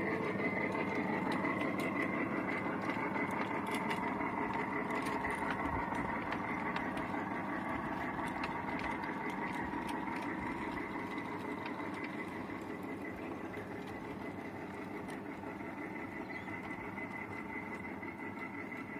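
5-inch gauge miniature train running along the track: a steady mechanical whine and wheel rumble with scattered clicks from the rails, fading gradually as the train pulls away.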